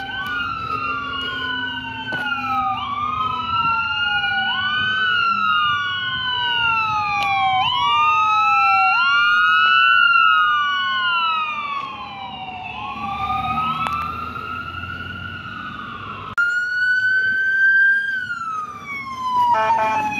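Fire engine siren wailing, each cycle rising quickly and falling slowly about every two seconds, loudest as the truck passes about halfway through. After an abrupt cut near the end, a second fire department siren on a utility pickup sweeps up and down more slowly.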